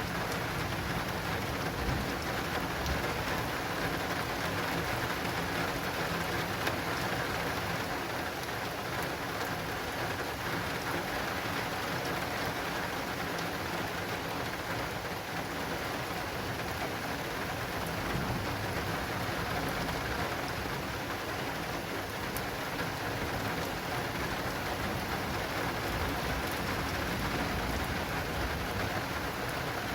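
Steady heavy rain pattering on an acrylic awning during a thunderstorm, an even hiss of drops. A low thunder rumble fades out at the very start.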